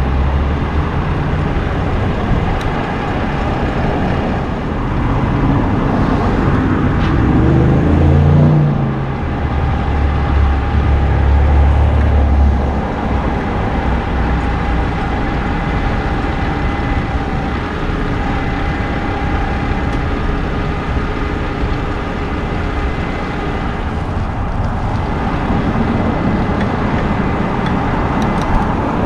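Vehicle engines and road traffic running steadily. About seven seconds in, an engine speeds up with its pitch rising, then holds a deep steady drone for a few seconds before dying away.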